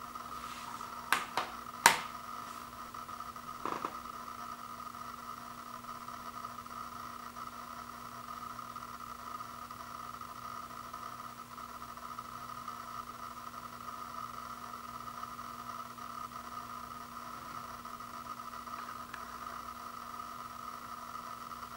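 Three sharp plastic clacks in quick succession a second or two in, the last the loudest, and a softer one near four seconds: a Blu-ray case being set down on a hardwood floor. Then a steady background hiss with a constant high whine and a low hum.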